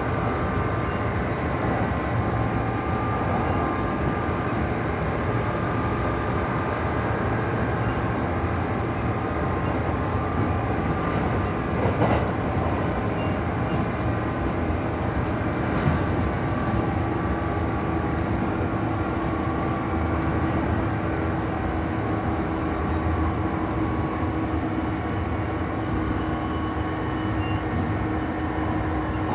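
Kintetsu 2800 series motor car running at speed, its Mitsubishi MB-3110A traction motors and gears whining with several steady tones over the running noise; one tone grows stronger past the middle. Two sharp knocks come near the middle, about four seconds apart. This is a low-pitched-type car with an odd, unusual noise coming from the drive couplings.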